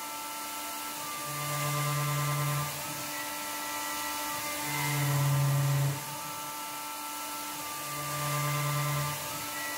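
DIY CNC mill's high-speed spindle driving an 8 mm four-flute end mill at 18,000 RPM through a roughing cut in aluminium, with a steady whine. The sound swells and drops in a repeating cycle about every three seconds, louder for a second or so three times, as the cutter makes its passes.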